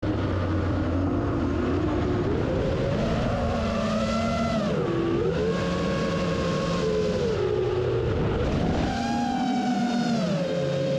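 A motor engine running steadily, its pitch stepping and gliding up and down as its speed changes.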